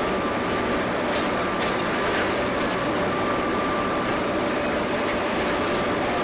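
Ship's engine running steadily on board, a constant drone with a steady hum.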